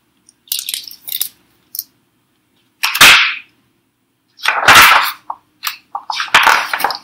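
Pages and cover of a hardcover picture book being handled and turned: light clicks and rustles in the first second or so, then sharp paper swishes about three seconds in, about five seconds in and again near the end.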